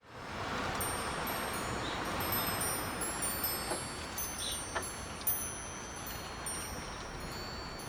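High-pitched wind chimes ringing in many overlapping, sustained tones, struck over and over by the wind, over a steady rush of wind.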